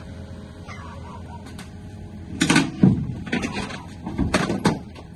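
Steady low vehicle drone, broken in the middle by a run of loud clunks and rattles, five or six knocks within about two seconds.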